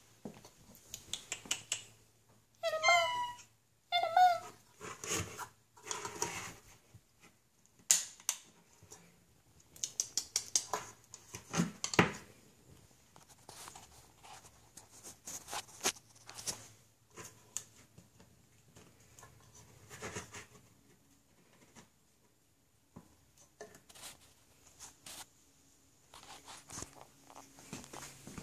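Tabby kitten meowing twice, about three and four seconds in, each a short wavering call. After that come scattered small clicks and taps as it eats from a food plate.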